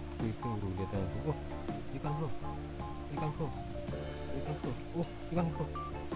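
A steady, high-pitched chorus of insects, crickets or cicadas, droning without a break. Melodic background music with short stepped notes plays underneath.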